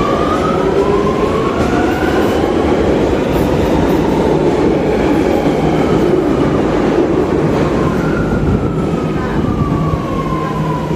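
A train running, with a constant rumble and a pitched whine that climbs in the first couple of seconds and falls away near the end.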